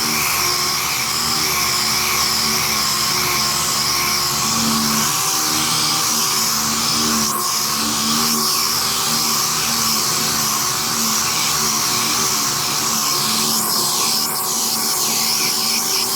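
Six-inch air-powered random orbital sander running steadily, a constant whine over air hiss, as it sands down body filler.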